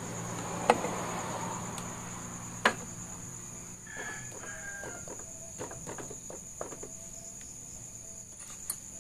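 Yamaha Byson's metal clutch cover being fitted by hand onto the engine case: light scraping, two sharp knocks about a second and two seconds apart as it meets the case, then scattered small clicks as it is pressed into place.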